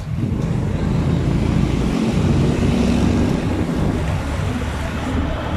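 Steady low rumble of a moving vehicle, with wind buffeting the microphone as it rides along a road.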